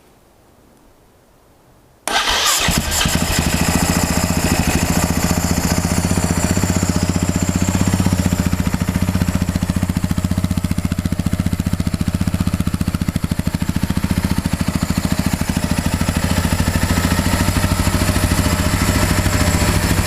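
Husaberg 450cc four-stroke single-cylinder motorcycle engine starting about two seconds in, after two months unridden, and then idling steadily.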